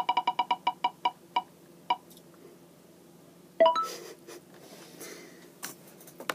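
A rapid string of identical electronic beeps from a computer speaker, slowing and stopping about two seconds in. Later comes a brief rising exclamation from a child and some soft rustling.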